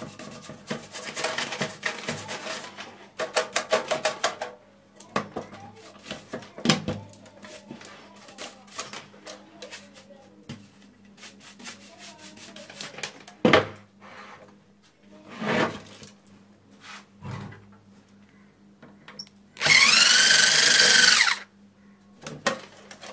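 A brush scrubbing the dusty metal lid of an old amplifier in quick repeated strokes, followed by scattered clicks and scrapes of handling. Near the end a small handheld power tool's motor whines for about a second and a half, rising and then falling. A faint steady low hum sits underneath.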